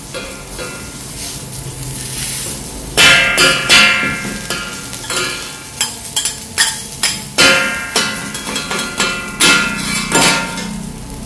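Metal spatulas clanking and scraping on a steel flat-top griddle, with sharp ringing clinks coming thick and fast from about three seconds in, over the steady sizzle of smoked fish and garlic frying in oil.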